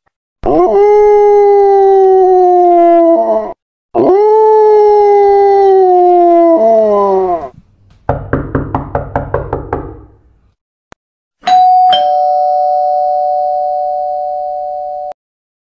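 A sequence of sound effects: two long howls that sink slowly in pitch, a short rapid pulsing rattle at about ten pulses a second, then a two-tone ding-dong doorbell chime whose two notes ring on together and fade.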